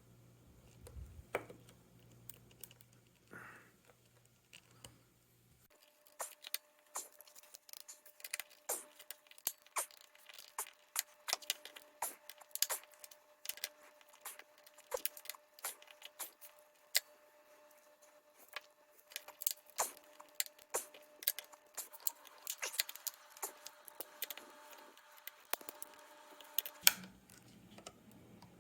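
Irregular small clicks, ticks and scrapes of a thin tool working at the seam of a Tile Bluetooth tracker's plastic case to pry it open.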